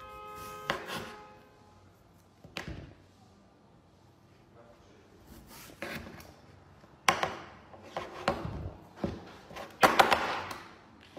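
Vegetable peeler scraping strips of skin off a cucumber in a series of short rasping strokes, louder and closer together in the second half. A brief pitched tone sounds at the very start.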